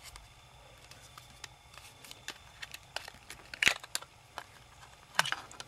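Small plastic clicks and crackles as a TomTom GPS unit's casing and circuit board are pried and handled apart, with a couple of sharper clicks, one a little past halfway and one near the end as the circuit board comes loose.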